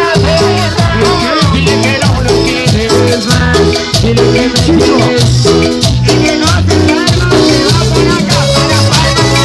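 Latin band playing live, an instrumental passage without vocals: a repeating bass line and melody over a steady percussion beat.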